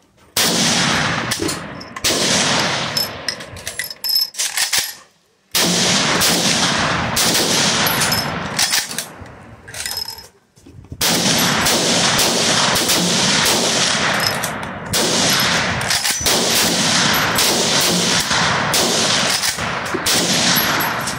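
Rapid gunfire in long strings of several shots a second, with brief pauses about five seconds in and about ten seconds in.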